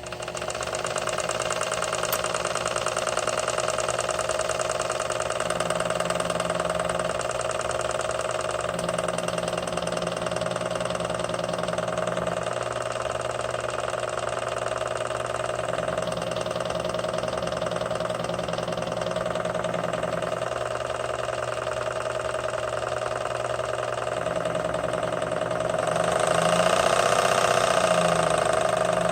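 Sherline mini lathe starting up and running at a steady speed, its motor and drive giving a constant whine. It grows louder for a couple of seconds near the end.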